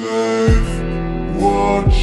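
Slowed-down emo rap song playing: sustained melodic notes over deep bass hits that drop in pitch, one about half a second in and another near the end.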